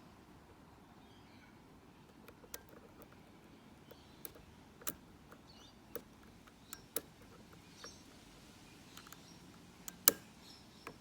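Small, irregular metallic clicks and ticks of a lock pick and tension wrench working the pins of a Mako padlock, with the sharpest click about ten seconds in.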